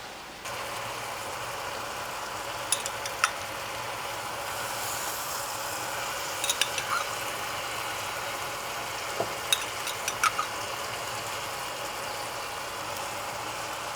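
Whole chicken sizzling in oil in a pot with onions and spices: a steady frying hiss, with a few light clicks scattered through it.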